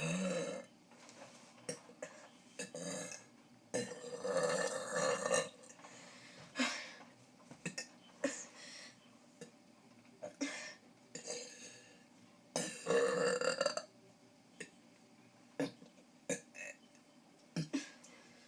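A person burping again and again, a string of separate burps with pauses between them. Two long, loud burps come about four and thirteen seconds in, with shorter ones between and after.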